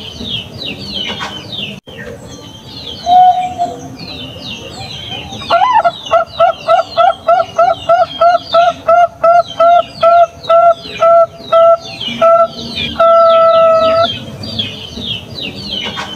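Zebra dove (Bangkok-type perkutut) cooing: one short coo, then a long run of quick, even coos at about three a second, then a single long held coo. High little chirps from other small birds go on throughout.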